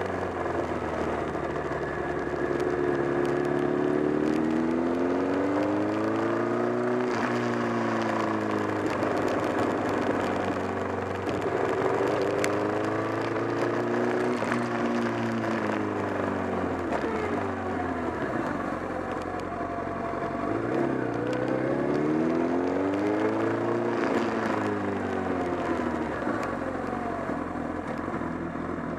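Honda CBR1000RR's inline-four engine running under way, its pitch rising and falling repeatedly as the revs go up and down. The owner reports a flapping 'batabata' noise from around the engine that grew stronger, together with a loss of torque.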